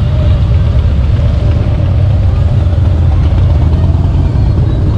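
Motorcycle engine running steadily: a loud, even, low rumble.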